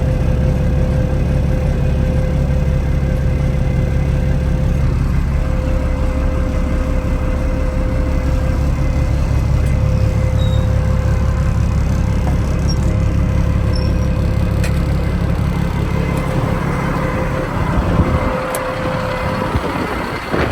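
Cummins diesel engine of a 1990 Ford concrete mixer truck running steadily, with a steady whine above the engine note. The low engine sound drops away about three seconds before the end.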